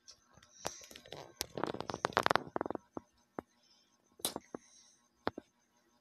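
A baby feeding from a plastic baby bottle, sucking and gurgling at the teat in a rapid run of wet clicks between about one and three seconds in. A few single clicks follow later.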